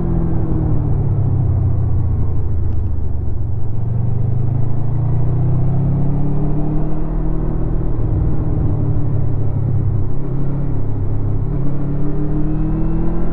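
A 2016 Honda VFR800's V4 engine running through its stock exhaust while riding. The engine note falls over the first few seconds, then rises again, dipping briefly once more before climbing toward the end.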